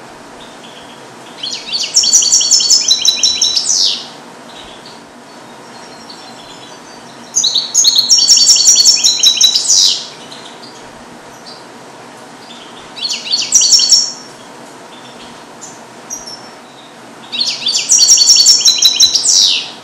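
Male European goldfinch, captive-bred and song-trained on Neapolitan-style song, singing four phrases of rapid, high twittering trills. Each phrase lasts two to three seconds and ends in a falling sweep, and the third one is shorter. A few soft single notes come between the phrases.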